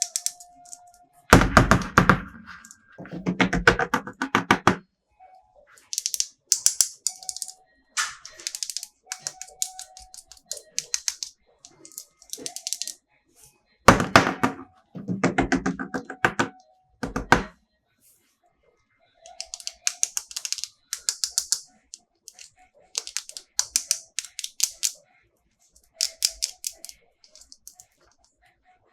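Bursts of rapid crackling and clicking from plastic toy packaging and figures being handled during an unboxing. There are about a dozen bursts, each lasting about a second, with short gaps between them; some of them are heavier and deeper.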